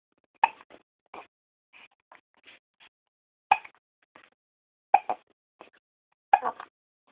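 A baby hiccuping: four sharp hiccups, the later three about a second and a half apart, with softer short sounds between them.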